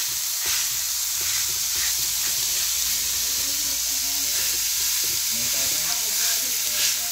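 Crumbled sausage and onions frying on an electric grill plate, with a steady sizzle. A spatula scrapes and stirs the meat across the plate.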